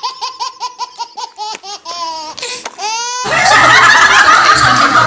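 A baby laughing uncontrollably in quick, regular, high-pitched pulses. About three seconds in it cuts suddenly to a louder, denser burst of several adults laughing together.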